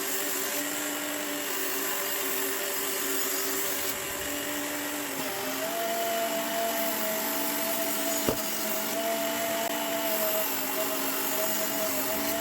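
Work Sharp Knife and Tool Sharpener's small belt grinder running steadily with a medium-grit belt as a steel blade edge is ground on it, raising a burr. The motor's whine steps up a little in pitch about five seconds in, with a single click a few seconds later.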